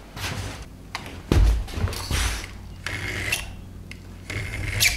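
A metal square and pencil handled against a wooden post while marking it out: clicks and scraping, with a thump about a second in.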